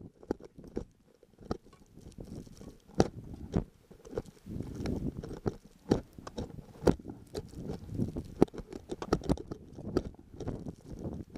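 Crampon footsteps crunching in snow at an uneven pace, with many sharp clicks and knocks, over a low rumble.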